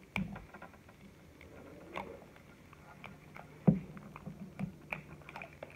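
Thin plastic wrapping crinkling and crackling in small clicks as it is picked and peeled off a plastic toy capsule, with a soft knock near the start and a louder thump a little past halfway.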